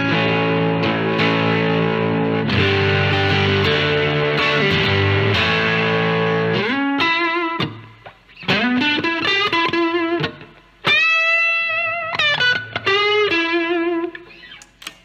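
Electric guitar with single-coil pickups through a Fender Vibrolux Reverb amp, distorted by a ZVex Distortion pedal: held, strummed chords for about six seconds, then single-note lead lines with bends and vibrato that die away near the end.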